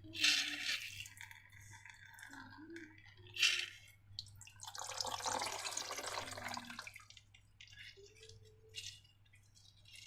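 Wet slime squelching and dripping: two short sharp splats, one at the start and one about three and a half seconds in, then a longer wet squelching stretch around the middle.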